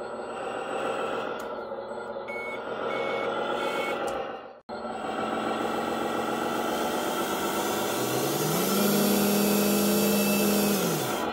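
RC model truck's sound module playing a diesel truck engine running, with three short reversing beeps about two to four seconds in. Around eight seconds in the engine sound rises in pitch, holds, then falls away near the end.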